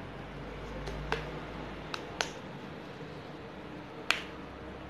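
Plastic cap of a green squeeze bottle of aloe vera gel clicking as it is handled and opened: a few short sharp clicks, two about a second in, two more about two seconds in, and the loudest near the end.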